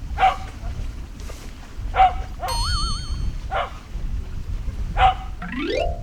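A dog barking four times in short sharp barks about a second and a half apart. A wavering whistle-like tone comes between the second and third barks, and a quick rising electronic sweep follows the last bark.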